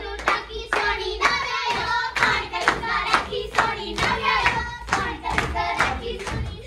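A group clapping their hands in a steady beat, about two to three claps a second, while singing Punjabi folk boliyan.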